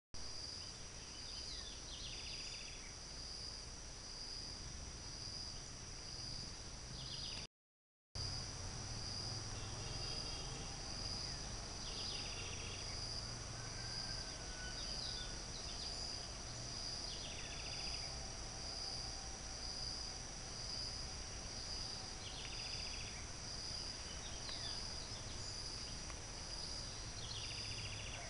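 Insects chirring steadily outdoors in a high, evenly pulsing trill of about two pulses a second. Short high chirps recur every five seconds or so. All sound cuts out for about half a second a little over a quarter of the way in.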